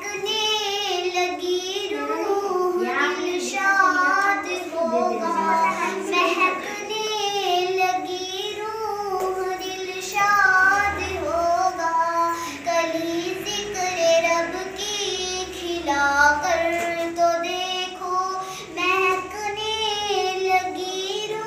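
A young girl singing a naat, an Islamic devotional song, solo in a high, continuous melodic voice.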